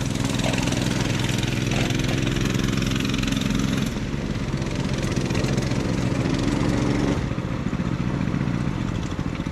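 Small motorcycle and off-road go-kart engines running at low speed as they ride up and pull in to stop. The engine sound drops about seven seconds in and fades toward the end.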